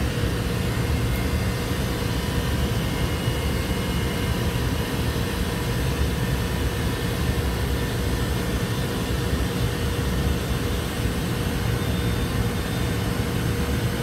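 An R-404A refrigeration air-conditioning unit running steadily just after its compressor has started: an even machine hum and hiss with a faint constant tone.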